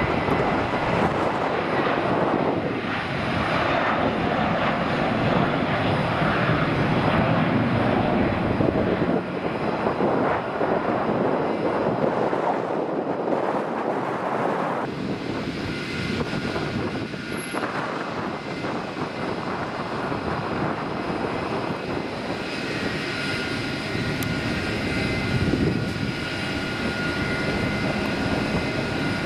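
Jet engines of Airbus A320-family airliners running at high power for takeoff and climb-out, a steady dense rushing noise. The sound changes abruptly about fifteen seconds in and again a little past twenty seconds, with a faint steady whine in the later part.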